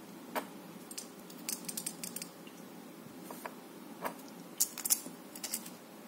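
Light clicks and small clatters of hard objects being handled on a desk, some single and some in quick little clusters, the loudest about four to five seconds in.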